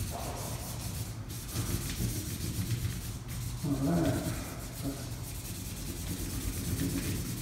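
Highlighter marker rubbing back and forth across paper as an area of the drawing is coloured in. A brief low hum comes about halfway through.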